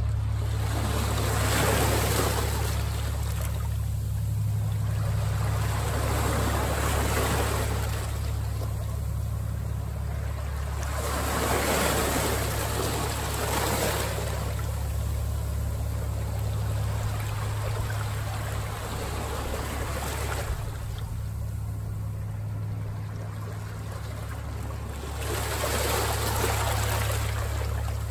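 Ocean surf breaking in slow, separate washes every few seconds, over a steady low rumble of wind buffeting the microphone.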